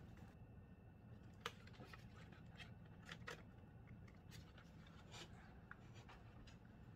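Near silence with a few faint, scattered clicks and light rubbing of plastic as a dashboard air vent is handled and test-fitted into a plastic dash facia.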